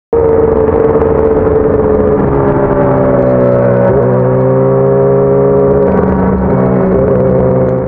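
Sport bike's engine running steadily at part throttle in fourth gear, its pitch drifting slightly with a brief dip about four seconds in. The sound cuts in abruptly at the start and fades out at the end.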